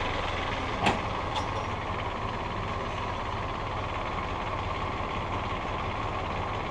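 IHC 423 tractor's diesel engine idling steadily, with a sharp clack about a second in and a fainter one shortly after.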